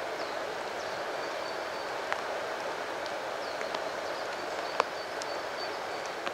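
Steady rushing of a swollen river pouring through a weir at a mill, with a few sharp clicks and faint high chirps over it.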